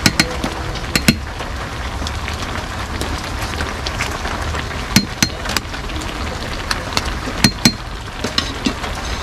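Steady rain hiss, with about a dozen sharp clinks at irregular moments, some ringing briefly.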